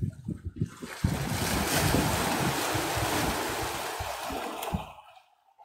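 Sea waves breaking and washing over shoreline rocks: a loud, even hiss of surf that sets in about a second in, fades slowly and cuts off shortly before the end. Wind rumbles on the microphone at the start.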